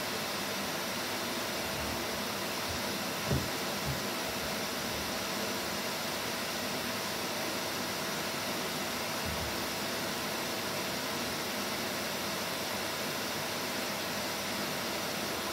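Vax Commercial VCU-03C upright vacuum cleaner running steadily, an even hiss with a faint steady hum. A couple of soft low knocks come about three to four seconds in.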